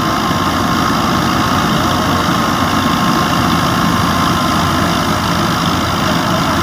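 New Holland Fiat 640 tractor's diesel engine running steadily under load, driving a wheat thresher through its PTO. Engine and threshing drum blend into one loud, even mechanical noise with a steady whine.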